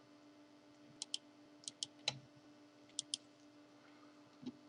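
Computer mouse clicking, several faint sharp clicks, mostly in quick pairs, over a faint steady electrical hum.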